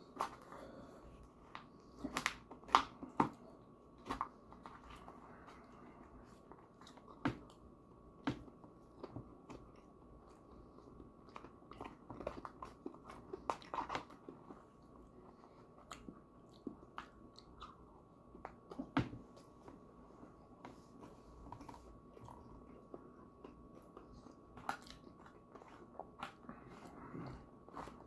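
Close-up eating sounds of mincemeat pie: chewing and crunching of pastry crust, with scattered sharp clicks of a fork working in the foil pie tin. A faint steady high tone runs underneath.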